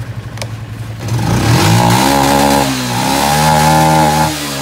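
Yamaha Exciter 135's single-cylinder four-stroke engine idling, then revved up about a second in and held high twice, with a brief dip between and a drop near the end. The revving tests whether the charging system keeps the lights steady. A single click sounds just before the revving.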